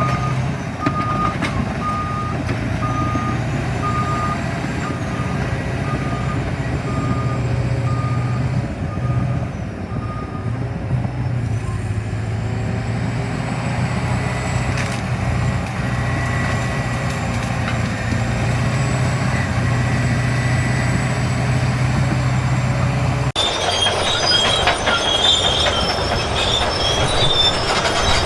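A heavy machine's engine runs steadily while its reversing alarm beeps evenly, about once every 0.7 seconds, for roughly the first ten seconds. A little before the end the sound cuts suddenly to high metallic squealing with clanking.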